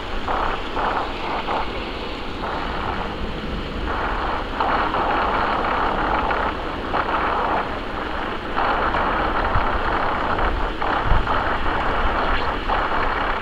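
Jet airliner's engines heard from the ground as it flies high overhead on its landing approach: a steady rushing noise that swells and fades every second or two, over a low rumble.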